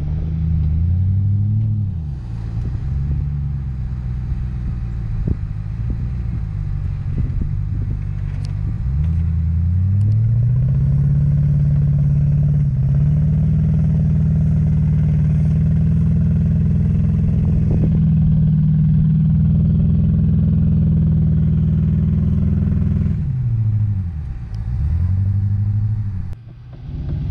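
An off-road vehicle's engine revving hard on a sand-dune climb. For the first ten seconds the revs rise and fall every couple of seconds. They are then held high and steady for about thirteen seconds, before falling and rising twice near the end.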